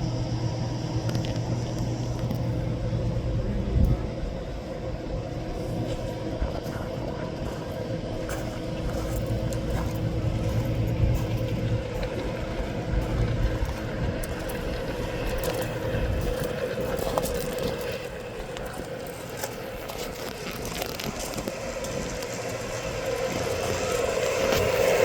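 G scale model train running on its track: a steady mechanical hum with wheel and gear noise, growing louder near the end.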